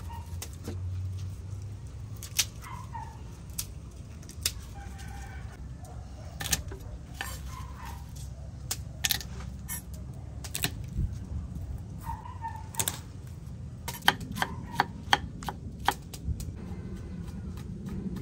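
Kitchen knife knocking on a thick wooden chopping block as garlic cloves are crushed and chopped: scattered sharp knocks, then a quicker run of chops near the end. Chickens cluck now and then in the background.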